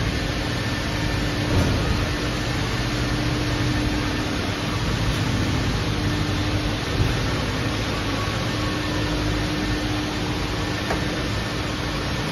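Self-serve car wash foam brush pouring foam as it is scrubbed over a car body, a steady hiss over a steady low hum from the wash bay's equipment.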